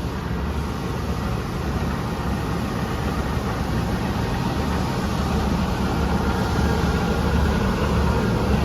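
Large Poreba TR100B/8M manual lathe running under power, a steady machine hum from its drive motor and headstock gearing, growing slightly louder about halfway through.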